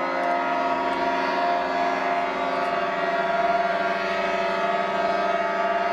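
Several boats' horns blowing together in long, steady, overlapping blasts.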